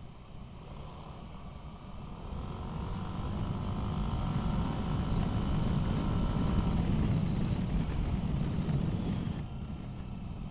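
Riding noise from a motor scooter under way: wind rush and the engine running, growing louder a couple of seconds in and easing off near the end.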